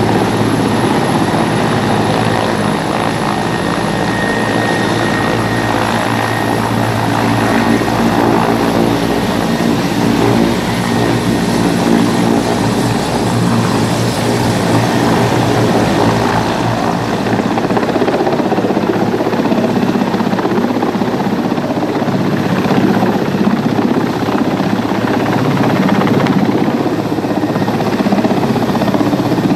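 Mil Mi-17 military transport helicopter hovering low, its rotor downwash blowing across wet grass. Its rotor and turbine noise is loud and steady, turning slightly duller in the second half.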